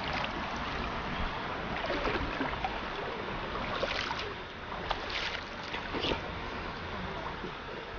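Steady rushing of river water, with a few faint short sounds near the middle.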